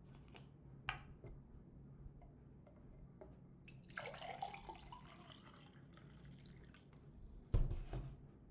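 Liquid poured from a plastic gallon jug into a drinking glass: a short splashing pour about four seconds in, after a click about a second in. Near the end a low thump as the jug is set down.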